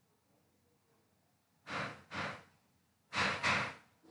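A person's breathy sighs: two short puffs of breath about two seconds in, then two louder ones a little over three seconds in, each puff lasting about a third of a second.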